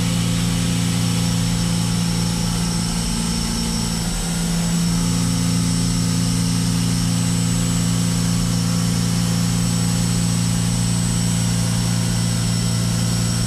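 CNC mill side-milling Hastelloy X superalloy under flood coolant: a steady, even cutting tone with a thin high whine over it, wavering briefly about four seconds in.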